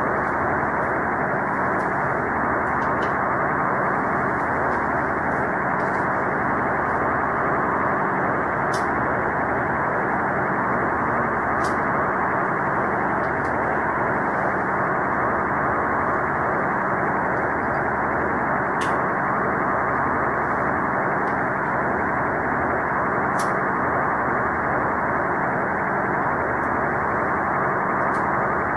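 Steady, muffled static hiss like an untuned radio, unchanging throughout, with a few faint clicks.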